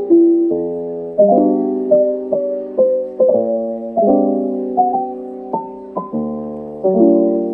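Background music: solo piano playing slow chords with a simple melody above, each chord struck and left to ring out.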